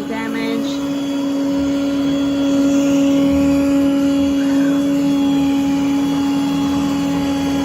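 Yeedi robot vacuum running steadily while cleaning a carpet: a constant motor and suction-fan hum with a steady whining tone.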